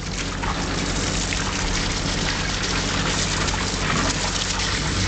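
Water jetting from a hose into a mortar pump mixer's steel filter tank and splashing onto the cement slurry inside, with an engine running steadily underneath.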